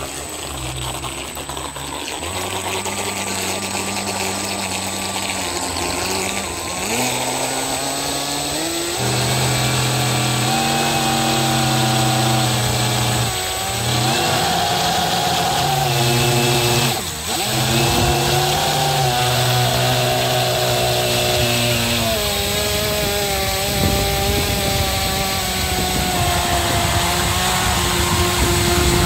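Radio-controlled model boat's motor running close up under throttle, its pitch stepping up and down as the speed changes, with brief dips. Water hisses past the hull.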